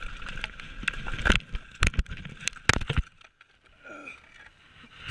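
Mountain bike rattling and clattering down a rocky trail, then a run of hard knocks and crashing impacts as the rider goes down; it goes quiet about three seconds in.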